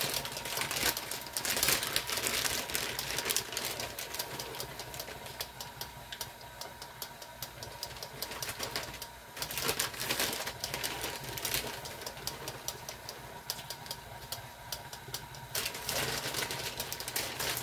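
KitchenAid stand mixer running, its beater working a thick sausage, cheese and baking-mix dough in a glass bowl, with a fast clatter of ticks over a steady motor hum.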